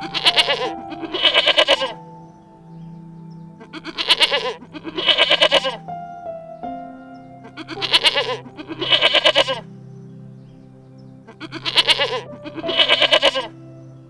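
An animal calling in pairs of short quavering cries, each pair about a second apart, repeated four times at even intervals about four seconds apart over background music.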